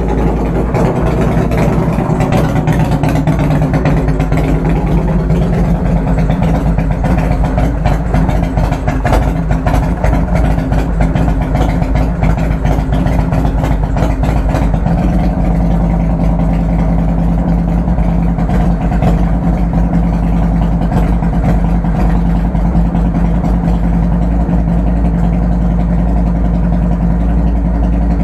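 Harley-Davidson Evolution 1340 cc air-cooled V-twin idling steadily, with a slight change in its note about halfway through. It is running on fresh oil from the tank to flush the old oil out of the dry-sump lines and crankcase.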